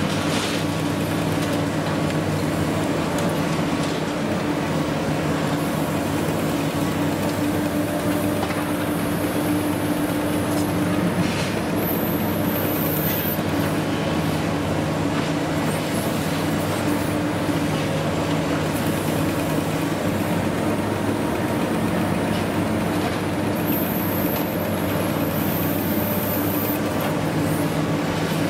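Long-reach demolition excavator working steadily: a constant diesel engine and hydraulic drone while its crusher jaws grind through concrete and rebar, with a few sharper cracks and short high metallic squeals.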